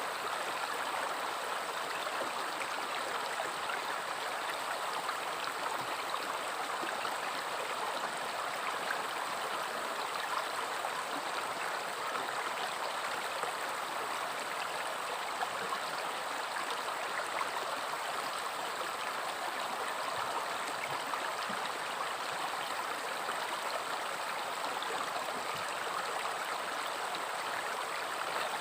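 A river flowing steadily: a continuous rush and babble of water over stones, with small splashes and gurgles flecking the even flow.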